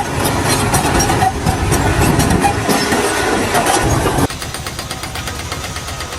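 A machine engine running with heavy clatter, cut off abruptly about four seconds in by a quieter, steadier engine sound.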